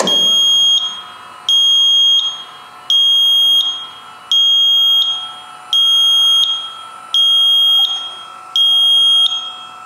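E-Stopp electric parking brake's warning alarm beeping loudly, a high piercing beep repeating about every 1.4 seconds, seven times. Under it a steady whine runs throughout as the actuator pulls the brake cables.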